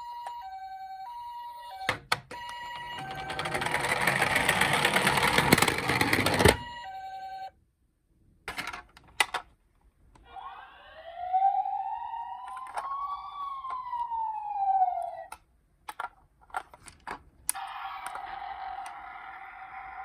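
Electronic siren sounds from toy emergency-vehicle minicars: a two-tone hi-lo siren alternating between two pitches, then a loud rushing noise for a few seconds. Later a single wail rises and falls once, some clicks follow, and a steady siren tone begins near the end.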